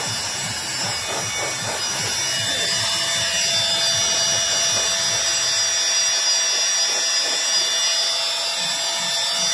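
INGCO electric paint spray gun running steadily, its motor giving a continuous whine with a hiss while spraying a first coat of colour paint. A further steady mid-pitched tone joins a little over two seconds in.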